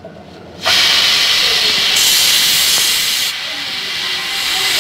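Chilli powder, garlic and ginger sizzling in hot coconut oil in a pan as they are stirred: a loud, steady hiss that starts suddenly about a second in.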